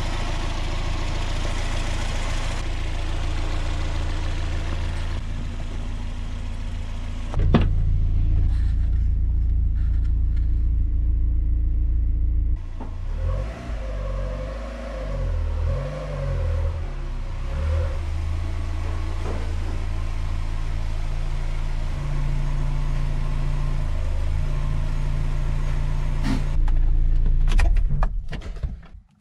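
Mazda MX-5 Miata's four-cylinder engine running at idle, revved up and down a few times midway, then shut off right at the end.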